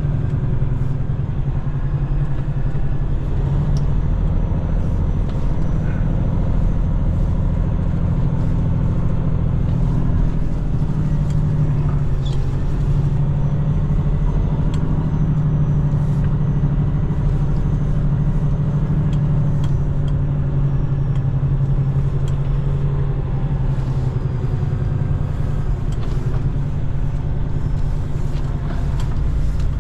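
Semi truck's diesel engine running at a low, steady speed, heard from inside the cab as the truck moves slowly.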